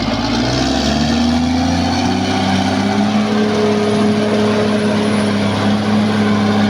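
Caterpillar D6R XL crawler bulldozer's diesel engine running hard. Its pitch rises over the first couple of seconds, then holds steady.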